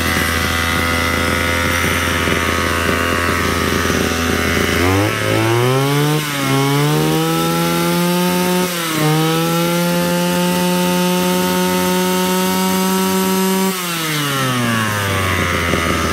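Brush cutter's small petrol engine running on a test start: it idles steadily, is revved up sharply about five seconds in and held at high revs with two brief dips, then drops back to idle near the end.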